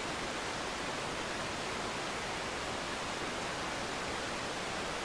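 Steady, even rushing noise with no distinct events, spread from low to very high pitches.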